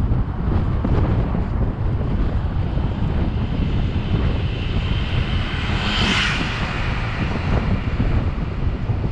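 Wind buffeting the microphone of a camera on a moving bike: a steady low rumble of wind noise. A hiss swells and fades about six seconds in.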